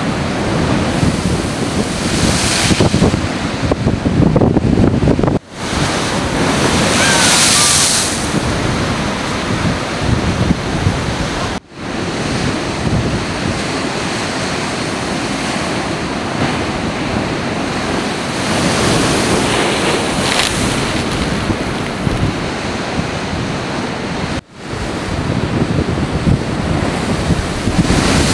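Heavy storm waves breaking and crashing against the seafront, a continuous loud rush with several hissing surges as waves break and throw spray, and wind buffeting the microphone. The sound cuts out abruptly for a moment three times.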